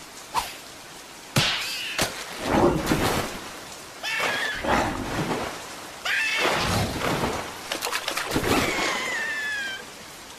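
Cartoon sound effects with high, squeaky character cries: several sudden noisy hits about one and a half, four and six seconds in, with squeals sliding down in pitch between them, the longest near the end.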